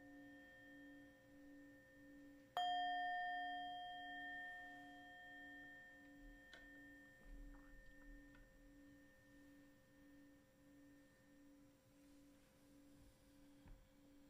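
Singing bowls ringing out, the low tone throbbing about three times a second. A bowl is struck about two and a half seconds in and its ring fades slowly, with a faint tap a few seconds later.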